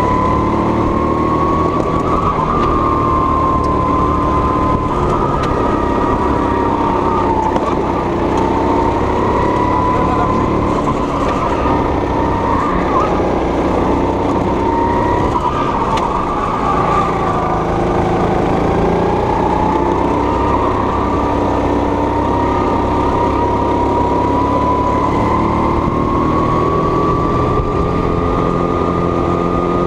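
Kart engine running hard at lap speed, heard onboard; its high-pitched note rises and falls continuously with the throttle through corners and straights, dropping lowest a little past the middle before climbing again near the end.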